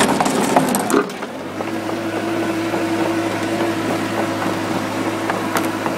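Mini bulldozer's engine running steadily, with a few sharp knocks in the first second; a steady hum settles in about a second and a half in.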